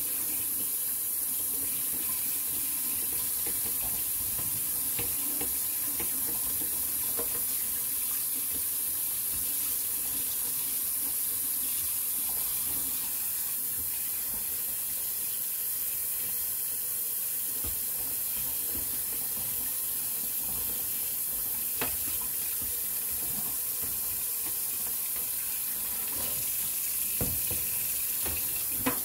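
Kitchen tap running steadily into a sink while a plastic litter-box panel is rinsed under it, with a few light plastic knocks near the end.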